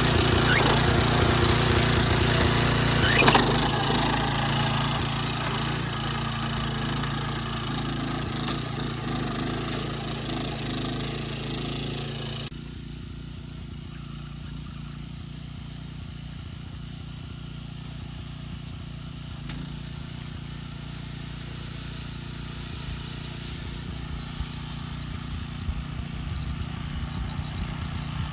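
Small lawn-mower engine of a go-kart built from a Wolf ride-on mower, running close by as the kart drives off over gravel, with one sharp knock about three seconds in. It cuts to the same engine heard from afar as the kart crosses a field, getting louder as it comes back.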